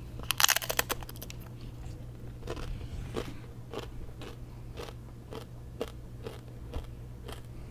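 A thick tortilla chip, the One Chip Challenge chip, bitten into with a burst of crunching about half a second in, then chewed with single crunches about twice a second.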